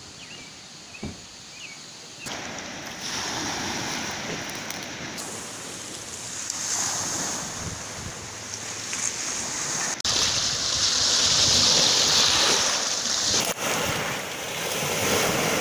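Lake Ontario waves washing onto a pebble beach. The sound is quiet for the first two seconds, then comes in as a steady wash of surf that grows louder about ten seconds in.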